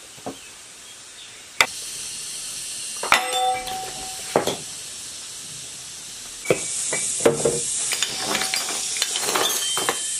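Sledgehammer blows on a hydraulic gear puller clamped to the flywheel of an 1115 single-cylinder diesel engine, knocking the flywheel loose: a few sharp metal strikes, one ringing, then lighter metal clinks. A steady hiss runs underneath and grows louder about halfway through.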